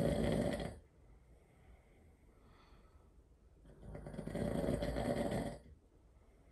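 A sleeping person snoring loudly: a rasping snore that dies away about a second in, a faint breath, then another rasping snore of nearly two seconds near the end.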